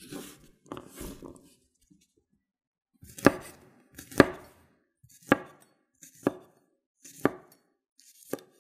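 Chef's knife slicing peeled garlic cloves on a wooden cutting board: after a couple of seconds of softer shuffling as the cloves are pushed together, six single, crisp cuts land about once a second, each ending as the blade meets the board.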